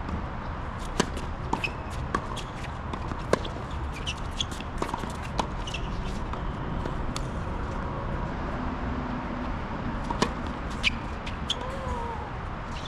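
Tennis balls being struck and bouncing in a doubles rally: a run of sharp pops roughly every half second to a second, a pause of a few seconds, then three more pops near the end, over a steady low rumble.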